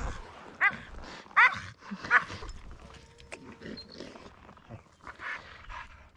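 A dog gives two short, high yelps about a second apart near the start, followed by fainter scattered sounds.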